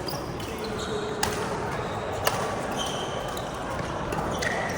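Badminton rackets striking the shuttlecock during a rally: two sharp hits about a second apart, with short squeaks of shoes on the court floor.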